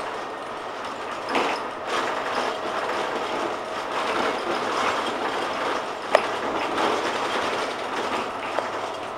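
Inside a moving Volvo Plaxton President double-decker bus: steady running noise with the body and fittings rattling and clicking, and one sharp click about six seconds in.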